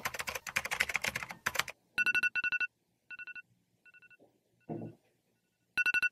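Electronic wake-up alarm beeping: short bursts of rapid pulses on a high two-note tone. The bursts fade away over a few seconds and come back loud near the end.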